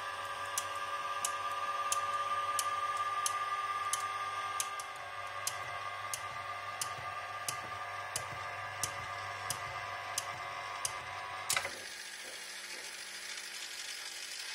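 Hemauer Miniatur de Luxe jukebox selector mechanism running: a steady motor hum under a relay clicking evenly, about three clicks every two seconds, as each record position is checked. About eleven and a half seconds in, a louder click comes and the motor's tone drops away as the carriage stops at the selected record.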